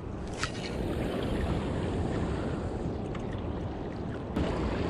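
Wind buffeting the microphone over water lapping against the rocks, a steady low rumble with a faint click about half a second in.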